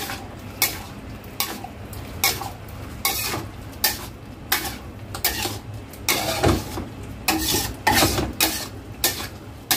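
Metal spatula scraping and clinking against a stainless-steel wok while stirring a saucy seafood stir-fry, the strokes repeating irregularly a little more than once a second.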